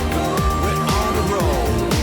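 Background pop-rap music with a steady beat and gliding synth notes, no vocals in this stretch.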